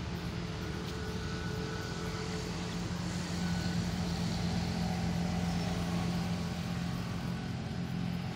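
A steady engine drone with a low held hum, which grows a little louder in the middle and eases slightly near the end.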